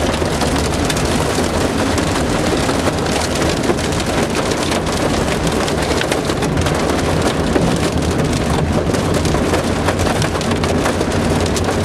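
Heavy rain hitting a moving car, heard from inside the cabin: a dense patter of sharp ticks over the car's steady low road rumble.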